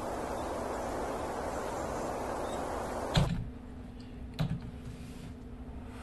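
A steady wind-like whooshing noise cuts off abruptly with a sharp click about three seconds in. Only a low hum is left, with another single click about a second later.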